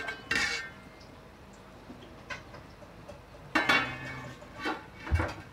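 A metal pot lid is lifted off with a ringing clank, then a metal spatula scrapes and knocks against the pot while turning cooked rice, with a second loud clatter about three and a half seconds in and a couple of knocks near the end.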